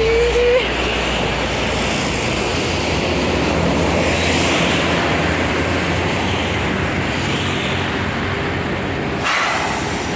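Tour buses in a convoy driving past close by: steady engine and tyre roar, with a short rising tone in the first half-second. The sound changes abruptly near the end.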